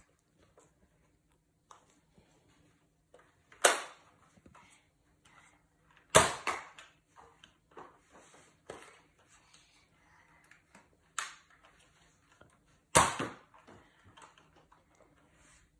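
Plastic clicks and clacks of a Nerf Dino Squad Triceratops toy blaster being handled and loaded with foam darts: three loud sharp clacks spread through, with fainter clicks between.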